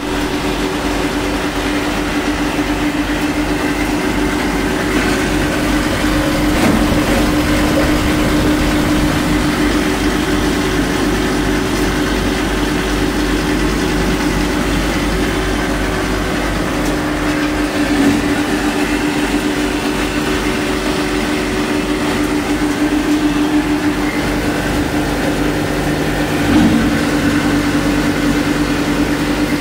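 Copper wire granulator machine running steadily: a continuous mechanical drone with a constant hum and a low throb, broken by a few brief louder knocks.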